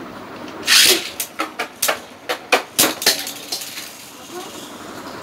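Beyblade spinning tops ripped from their launchers into a plastic stadium with a loud zip, followed by a quick run of about ten sharp clacks over two seconds as the tops collide with each other and the stadium wall.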